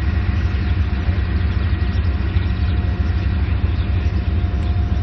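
Diesel engine of a heavy tracked armoured vehicle idling with a steady low rumble and a faint steady whine above it.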